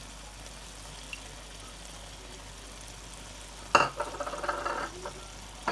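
Chicken karahi masala frying in oil in a karahi, a steady low sizzle. About three-quarters of the way through there is a sharp knock, followed by about a second of clattering.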